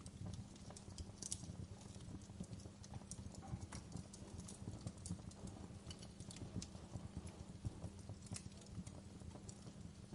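Fireplace fire crackling: irregular sharp pops and snaps over a steady low rumble of the flames.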